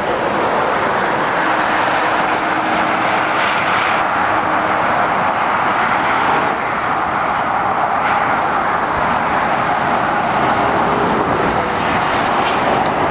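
Steady traffic noise of lorries and cars passing on a motorway, mostly the even rush of tyres on the road with engines under it.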